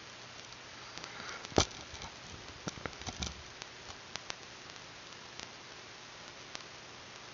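Steady microphone hiss, broken about a second and a half in by one sharp knock, then a scatter of smaller clicks and taps over the next couple of seconds and a few lone ticks after. These are handling knocks from the webcam being moved back from an extreme close-up.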